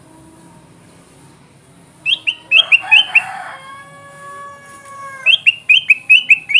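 Kutilang emas, a bulbul, singing vigorously: two runs of quick, loud chirping notes, the first about two seconds in and the second near the end, with a long level-pitched call between them.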